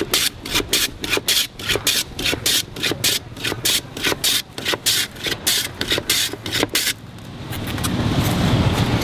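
A block of ice is pushed back and forth over the blade of a wooden hand ice shaver, rasping strokes about three a second, which stop about seven seconds in. A low rumble then builds.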